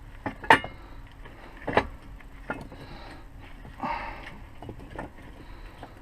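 Workshop handling noises: several sharp knocks and clanks, the loudest about half a second in and another just before two seconds, with a short scrape near four seconds.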